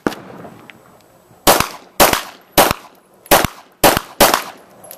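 Pistol fired in a string of about seven sharp shots, unevenly spaced half a second to a second apart: a shooter running a timed USPSA practical pistol stage.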